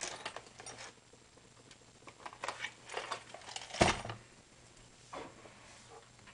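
Scattered small clicks and taps from handling a paintball marker's grip frame and its small parts, with one sharper knock about four seconds in.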